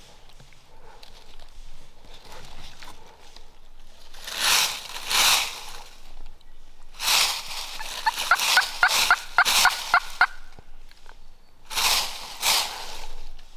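Wild turkey tom (longbeard) gobbling three times, answering the hunters' calls. The middle gobble is the longest, a fast rattling run of notes.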